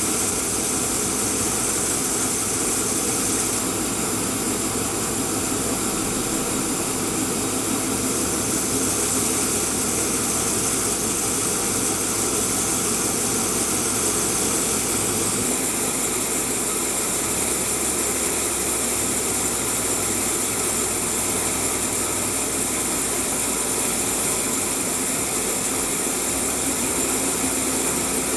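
J.A. Fay & Egan 950 Lightning bandsaw running steadily, its 10-horsepower variable-speed main motor and blade giving a constant mechanical hum and whir.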